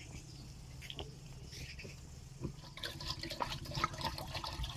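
Water splashing and dripping, the small splashes thickening about three seconds in, over a steady low hum.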